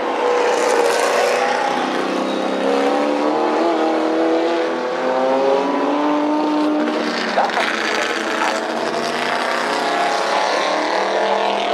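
Engines of historic racing GT and touring cars running hard on the circuit, several at once, their pitch rising and falling as the cars accelerate, brake and change gear.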